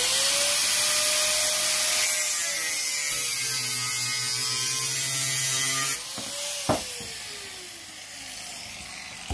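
Handheld angle grinder spinning up and grinding steel with a loud hiss, its pitch sagging while it bears on the work. It is switched off about six seconds in and winds down with a falling whine, with a sharp clack soon after.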